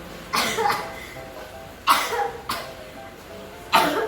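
A person giving four harsh, sudden coughs spread over a few seconds: a forced, put-on cough rather than one from illness.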